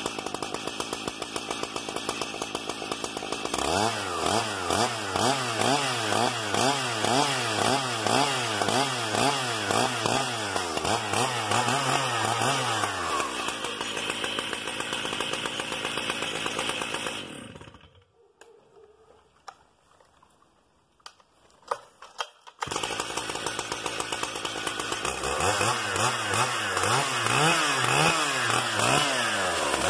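Stihl MS 880 two-stroke chainsaw running with the throttle blipped over and over, the engine climbing and dropping in pitch in quick repeated revs. About 18 seconds in it dies away, with a few clicks in the quiet. It is running again from about 23 seconds in, and the revving up and down resumes.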